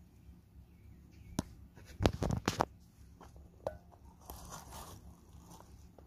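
Scattered clicks and crackles close to the microphone, with a burst of louder crackling about two seconds in.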